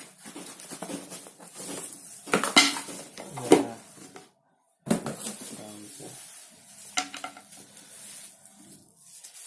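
Rustling and clattering of a speaker's packaging being opened and handled, with irregular clicks and knocks, the loudest about two and a half and three and a half seconds in. The sound cuts out completely for about half a second midway.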